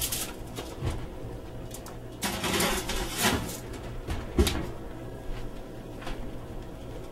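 Tappan electric oven door opened, a dish scraping onto the rack, then the door shut with a sharp knock about four and a half seconds in.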